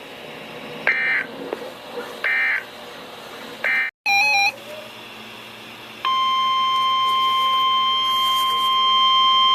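NOAA Weather Radio alert signals. Three short squawks of SAME digital data close off the warning, about a second and a half apart. After a brief dropout and a short beep, the steady 1050 Hz warning alarm tone starts about six seconds in, announcing the next alert.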